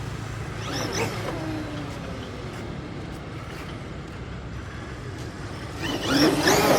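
Small petrol engine of a quarter-scale RC motorcycle running, getting louder with rising pitch from about six seconds in.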